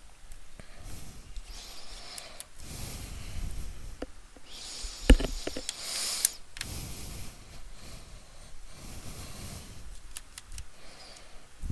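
Hands working on a laptop's bottom case, undoing its screws: stretches of scraping and rustling with a few sharp clicks, the loudest about five seconds in.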